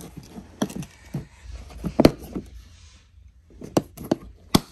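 Plastic tackle boxes and fishing gear being handled: a string of light knocks and clacks, the loudest about two seconds in and another sharp one near the end.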